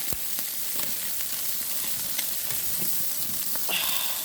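Shrimp sizzling on a hot grill: a steady hiss with scattered small crackling pops.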